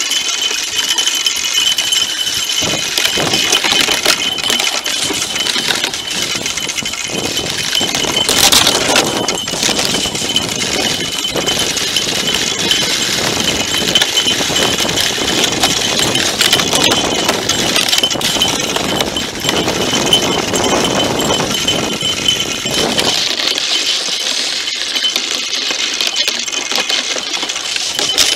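Homemade pulk sled's runners scraping and chattering over rough lake ice, a steady gritty rasp full of clicks and rattles. The low rumble in it drops away near the end.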